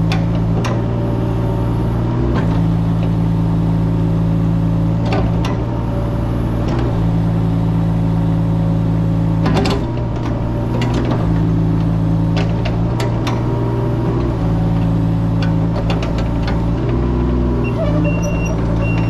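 A mini excavator's diesel engine running steadily while it works, its note shifting a little every few seconds. Scattered metallic clanks and knocks sound over it.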